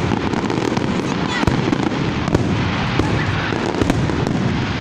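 Aerial fireworks display: a continuous barrage of many shells bursting, with frequent sharp bangs and crackling over a steady rumble.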